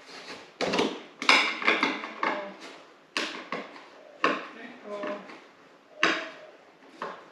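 Hard objects knocking and clattering, about half a dozen sharp knocks at irregular intervals, loudest between one and two seconds in.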